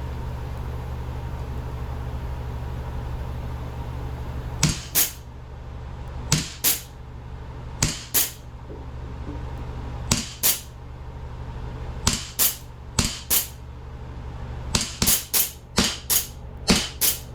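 CO2-powered replica Springfield 1911 air pistol firing about fifteen sharp shots. They start about four and a half seconds in, mostly in pairs a second or two apart, and come faster near the end.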